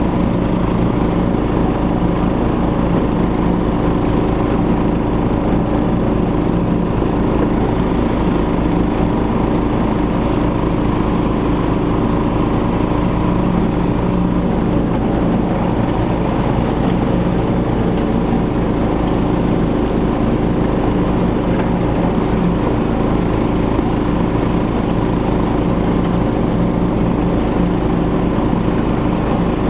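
Snapper SR1030 lawn tractor's engine running steadily while it mows, the engine note holding constant throughout.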